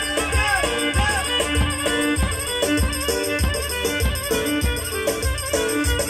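Turkish folk dance music: a davul bass drum beating a steady rhythm, about two beats a second, under a melody with bending, wavering notes.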